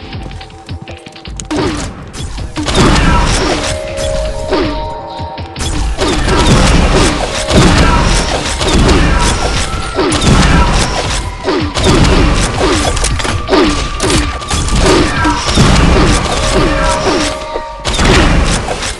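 Fireworks going off in a rapid, continuous barrage of bangs and crackles, with music playing alongside.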